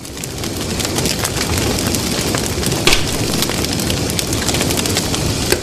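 Fire sound effect for an animated end screen: a steady noise of burning flames with many small crackles and a louder pop about three seconds in.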